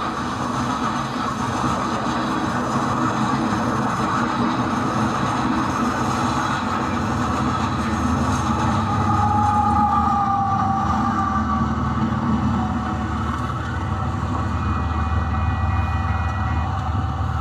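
HO scale model of a Canadian National coal train running past, a steady rumble and rattle of the train on the track, with a brief falling whine about nine seconds in.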